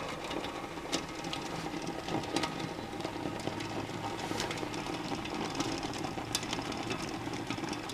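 Groen TDB 6-10 jacketed electric kettle heating from cold on setting 5: a steady hum with scattered irregular ticks and crackles from the heating inner jacket, with only a little water in the pan.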